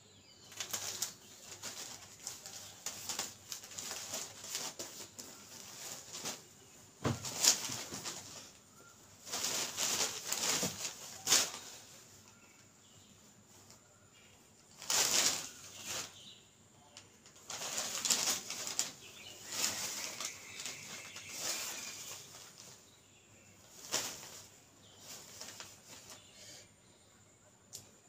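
Cotton handloom tant sarees being unfolded and laid out by hand: the cloth rustles and flaps in irregular bursts with quieter stretches between.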